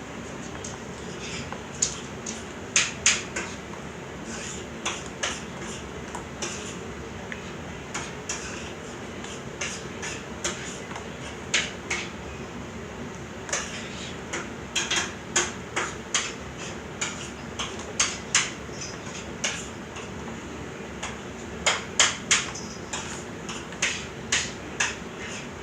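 Sticky fluffy slime, made with shaving cream, being squeezed and stretched by hand, giving irregular sharp pops and clicks that come in little clusters, over a steady background hiss.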